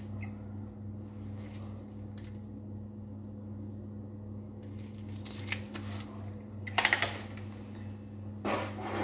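Steady low hum of a biosafety cabinet's blower. Just before seven seconds in there is a quick run of sharp clicks, the loudest sound. Near the end there is rustling as the protective suit moves.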